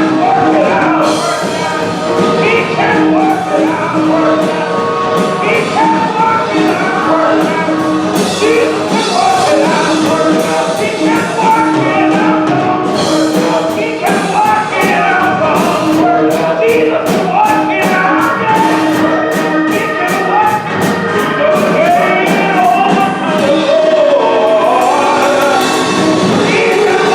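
Church choir singing a gospel song with instrumental accompaniment and a steady beat.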